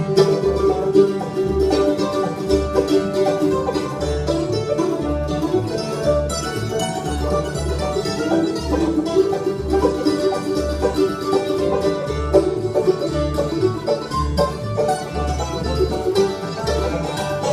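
Bluegrass band playing an instrumental break: banjo picking over rhythm guitar, with a steady bass beat underneath.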